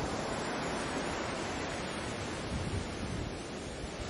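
Sea surf washing in: a steady, dense rushing noise, with a brief low rumble swelling about two-thirds through.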